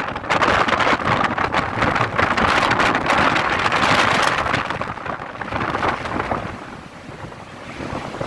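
Squall wind buffeting the microphone in loud gusts with crackling, easing off about six seconds in and building again near the end.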